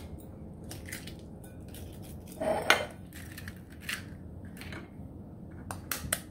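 A metal spoon tapping eggs to crack them against the rim of a bowl: a series of light, sharp clicks, with a louder crack about two and a half seconds in.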